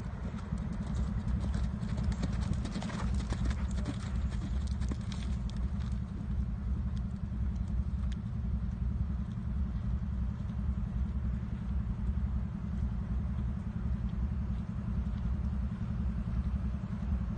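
Hoofbeats of a Thoroughbred horse cantering and jumping on sand arena footing, under a steady low rumble.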